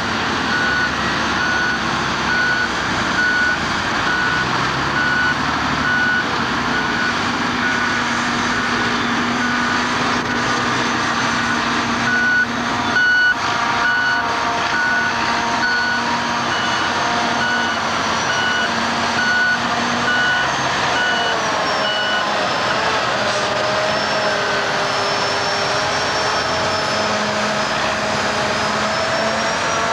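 Heavy diesel engines of AEC Mercury dump trucks running, their pitch rising and falling, with a vehicle reversing alarm beeping at a steady pace that stops about 22 seconds in.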